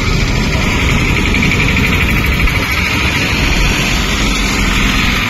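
Steady, loud noisy rumble outdoors, with no clear tone or rhythm.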